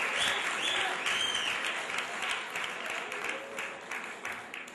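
Audience applauding, the clapping thinning and dying away toward the end.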